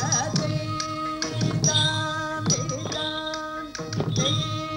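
Indian-style dance music: held melodic notes over regular percussion strokes about once a second.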